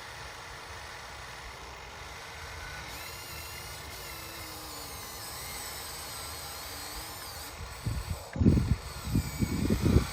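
RC excavator's small electric motor and hydraulic pump whirring, the whine wavering up and down in pitch as the machine works. Near the end, loud, irregular low rumbling bursts come in over it.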